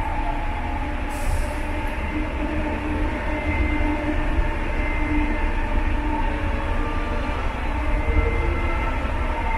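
JFK AirTrain car (Bombardier ART, driven by linear induction motors) running along its guideway, heard from inside the car. A steady low rumble carries thin whining tones that come and go, with a brief high hiss about a second in.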